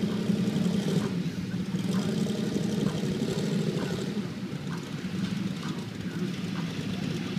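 A four-wheeler ATV's and a Jeep's engines running steadily with a low, even drone.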